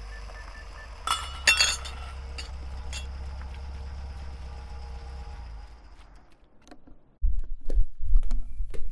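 Sound effects with no speech: a steady low hum with a faint repeating beep for the first second, then a burst of glassy clinking and breaking about a second in. The hum fades out around six seconds, and about seven seconds in a run of heavy low thumps begins.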